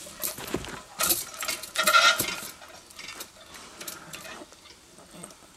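Tarzan rope's trolley and hanging seat clanking and rattling at the end of the cable after the rider lets go. It is a run of metallic knocks and clinks, loudest about one and two seconds in, dying away over the next couple of seconds.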